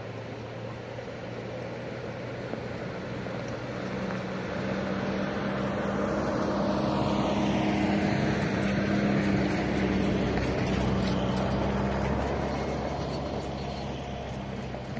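A motor vehicle approaching and passing by, growing louder to a peak about eight to ten seconds in and then fading, over a steady low hum.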